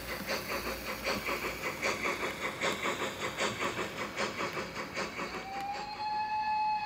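Sound-fitted OO gauge model of a BR Standard Crosti 9F 2-10-0: its Zimo MX645R sound decoder, playing through the model's speakers, gives a steady rhythm of steam exhaust beats as the train runs. About five seconds in, a long whistle at one steady pitch begins.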